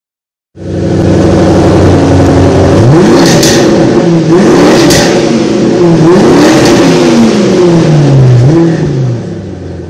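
2008 Ford Mustang GT's 4.6-litre V8 running loud through aftermarket Flowmaster mufflers with chrome tips. It cuts in about half a second in, idles for a couple of seconds, then is revved several times, each rev rising and falling back, and fades near the end.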